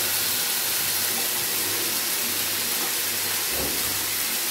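Steady hissing sizzle from a hot pot of sautéed kale as a little water is added to steam it.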